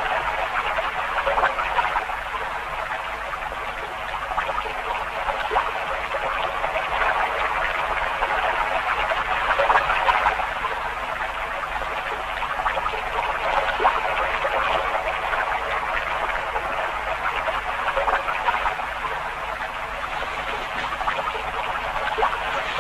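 A dense chorus of frogs croaking without a break, many calls overlapping.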